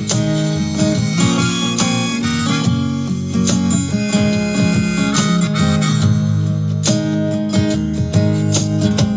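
Instrumental break in a country song: harmonica playing over acoustic guitar, with no singing.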